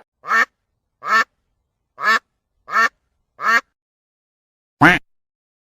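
A duck quacking six times, short calls spaced roughly a second apart, the last a little louder, with dead silence between them.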